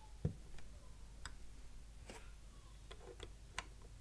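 Plastic Cobi building bricks being handled and pressed onto a model: a few scattered small clicks and taps, with a dull knock about a quarter second in.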